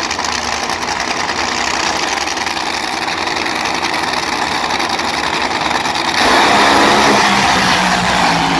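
Two nitromethane Funny Cars' supercharged engines run loudly at the starting line. About six seconds in, both go to full throttle for the launch, a sudden, louder and harsher blast that eases off slightly as the cars pull away.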